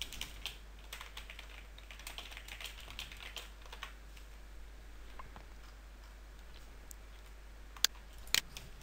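Typing on a computer keyboard: a quick run of light keystrokes over the first four seconds or so, then a lull, then two sharper, louder clicks near the end.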